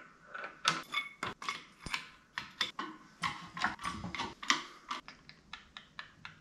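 Light metal clicks and clinks from a small shop press and the steel sockets stacked in it as a bearing is pressed into an idler arm. The clicks come irregularly at first, then turn into a regular ticking of about three a second near the end.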